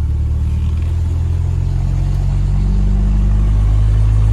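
An engine running steadily with a low hum that grows slightly louder toward the end.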